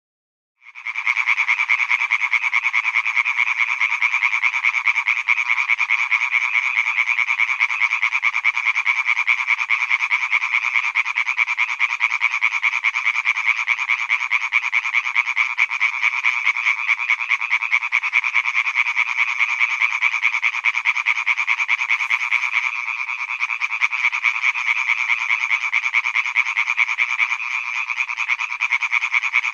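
Breeding chorus of male European tree frogs (Hyla arborea) calling from a pond: many fast, rattling croaks overlapping into a dense, unbroken sound that starts about half a second in.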